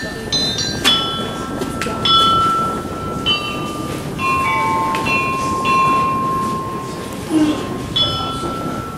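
Background music: a slow melody of long held notes that change every second or so, over a steady hiss.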